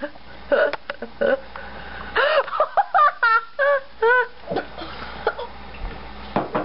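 A young woman retching and vomiting into a kitchen sink: a few short heaves, then a run of strained, pitch-bending vocal gags about two to four seconds in.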